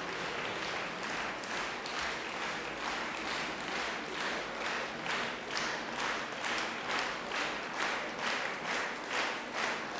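Concert hall audience applauding. Over the second half the clapping falls into rhythmic unison at about two claps a second.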